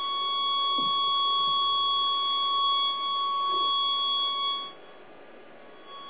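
Microwave receiver's speaker sounding a steady high-pitched tone, showing that microwaves are getting through to the receiver. The tone cuts out about three-quarters of the way through as the signal is blocked, and comes back at the very end.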